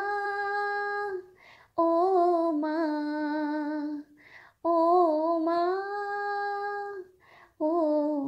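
A woman singing unaccompanied, in four phrases separated by short pauses for breath, each phrase ending on a long held note.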